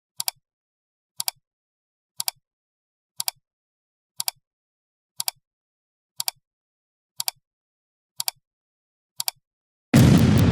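Ten sharp double clicks, evenly spaced one a second, each a quick pair of ticks. Near the end a loud explosion-like blast of noise sets in.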